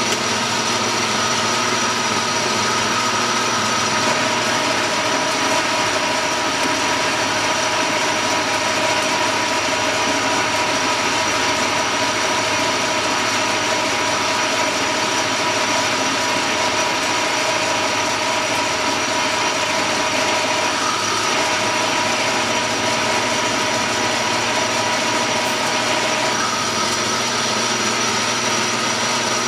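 Metal lathe running steadily under power feed, taking a finishing cut along a small pin. Its gearing gives several steady tones over a mechanical hum, and the tones shift slightly about two-thirds of the way in and again near the end.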